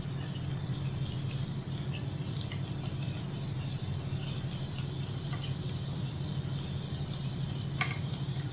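Egg biscuit pitha deep-frying slowly in a pan of hot oil on medium-low heat, the oil bubbling with small scattered pops and crackles over a steady low hum.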